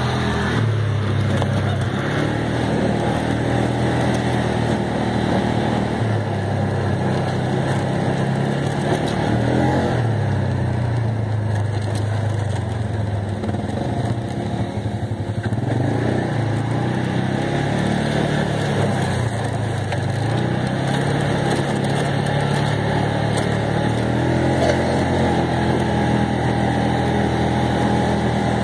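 Engine of an off-road utility vehicle running as it drives along a dirt trail, its pitch rising and falling repeatedly with the throttle.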